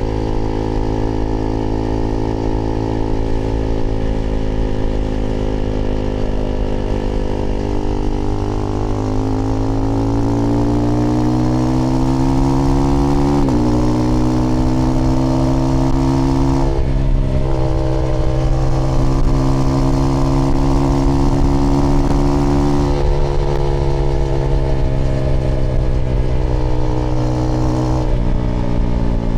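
Husqvarna Svartpilen 401 single-cylinder engine through an aftermarket IxRace Mk.2 exhaust with a modified dB killer, riding under way. The engine note climbs steadily for several seconds and then drops sharply at an upshift about halfway through. After that it runs steadily, changing with the throttle a few more times.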